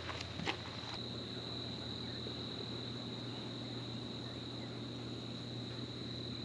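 Faint, steady, high-pitched trill of insects with a low steady hum beneath it. In the first second, a few short rubbing strokes of a cloth over the motorhome's bodywork.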